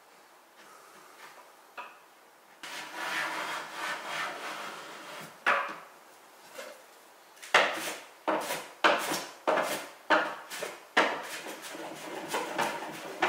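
A small hand tool scraping and shaving the edge of a hardwood frame: a steady rubbing stroke about two and a half seconds in, then a run of about seven short, sharp strokes, roughly two a second, and softer rubbing near the end.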